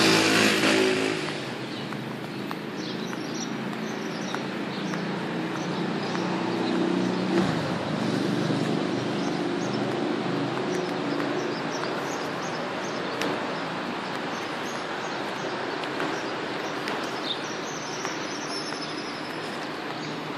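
Steady city road traffic with a motor vehicle passing loudly at the start and another engine rumbling past about seven seconds in, while small birds chirp now and then.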